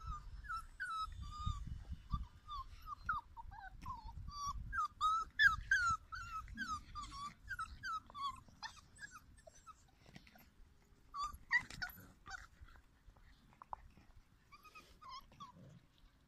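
Young puppies whining and yipping as they play-fight: a quick string of short, high squeals, loudest about five seconds in, thinning out to a few more squeals later on.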